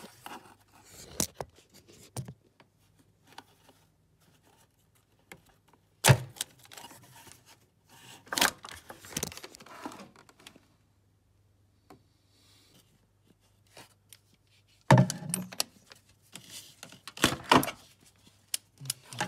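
Hand tools and metal parts being handled in a car's engine bay: irregular metallic clicks, knocks and scrapes with quiet gaps between, with a sharp knock about six seconds in and a louder clatter around fifteen seconds.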